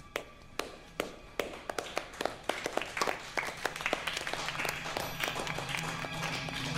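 A class of students clapping: a few scattered claps that soon spread into steady applause. Music begins to come in underneath near the end.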